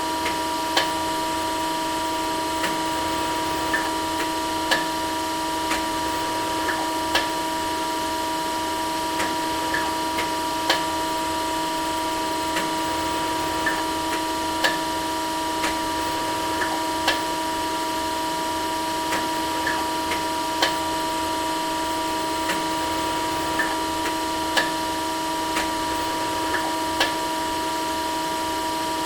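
Industrial cutting machine running steadily with a constant hum, with sharp clicks about once a second at uneven intervals.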